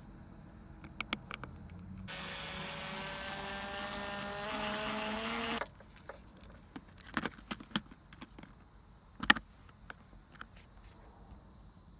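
Electric drill running for about three and a half seconds while boring a hole, its pitch rising slightly before it cuts off suddenly. A few light clicks and one sharper knock follow.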